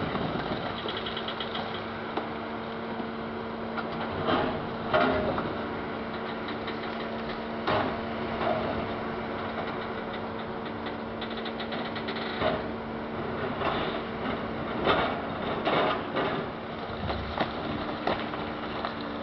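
Diesel engine of a high-reach demolition excavator running steadily, with irregular crashes and crunching of concrete as the building is torn down.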